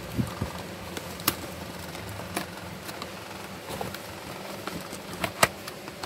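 Cardboard product box being handled and opened, giving scattered light clicks and taps, the sharpest near the end, over a faint steady low hum.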